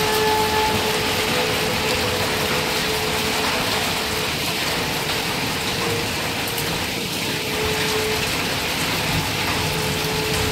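Heavy rain and hail falling on grass and pavement: a dense, steady hiss. A faint steady tone fades in and out behind it.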